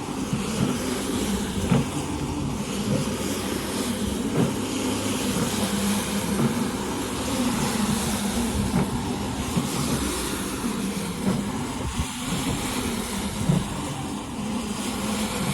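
A rug-cleaning machine's motor running steadily, with a few short knocks now and then.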